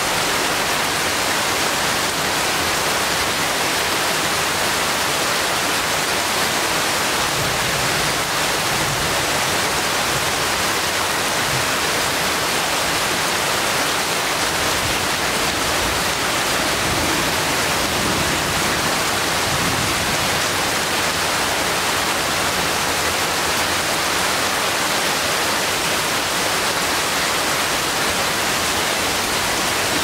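Steady rain falling on forest leaves, an even, unbroken hiss.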